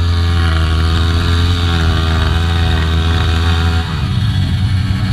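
Dirt bike engines running at a steady fast idle close by; about four seconds in the main engine's revs fall away to a lower idle.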